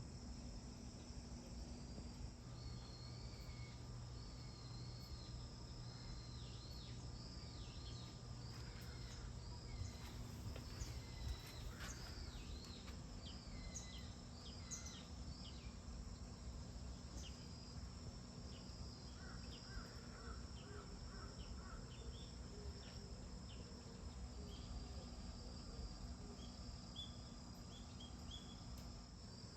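Faint outdoor ambience of a steady insect chorus, with many short bird chirps through the first half and a brief run of quick pulses about two-thirds of the way in.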